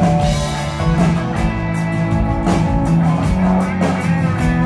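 Live country-rock band playing an instrumental passage between vocal lines: electric guitar, bass and drum kit with a steady beat.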